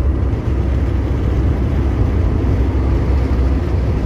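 Steady low rumble of road and engine noise heard from inside a moving pickup truck's cabin.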